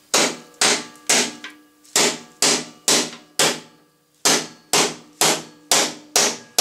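A hammer strikes a steel socket held as a drift against a lawnmower's aluminium wheel hub, about a dozen ringing metallic blows at roughly two a second with a short pause midway. The blows tap the freshly greased wheel bearing home on the axle.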